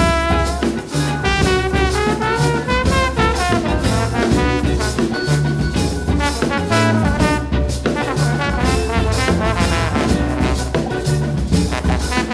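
Live brass band playing an upbeat swing-style tune, with trombones and trumpets carrying the melody over a drum kit.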